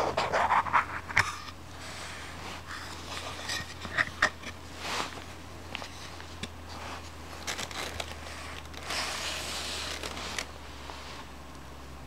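A wooden knife box handled with cotton-gloved hands: a quick run of light wooden knocks and scrapes as the box is worked open, scattered clicks a few seconds later, and a stretch of soft rustling near the end as the folding knife is taken out. A low steady hum runs underneath.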